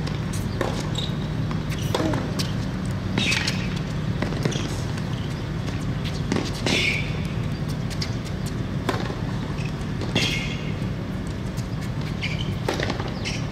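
Tennis rally on a hard court: racquets striking the ball back and forth, a sharp pock roughly every one to two seconds, over a steady low hum.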